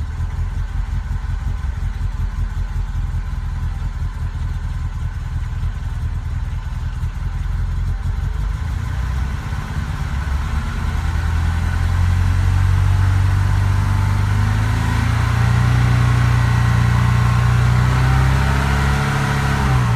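BMW 2002's inline-four engine, which is misfiring, running roughly at idle and then brought up slowly on the throttle: the revs climb gradually for several seconds, hold high, and fall back near the end.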